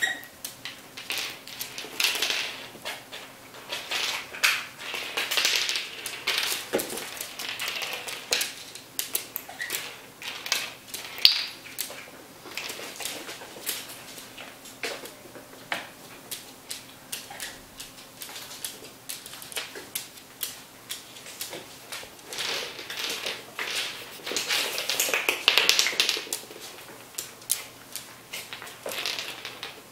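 Claws of an African grey parrot and Bengal kittens clicking and tapping irregularly on a hardwood floor as they walk and play, with a few louder spells of scuffling.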